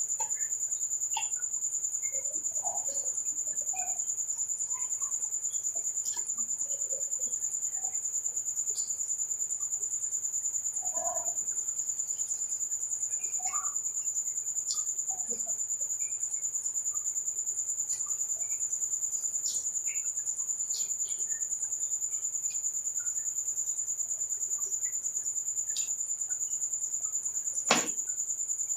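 Soft, scattered eating sounds, chewing and small utensil clicks, with one sharp click near the end, under a steady high-pitched trill.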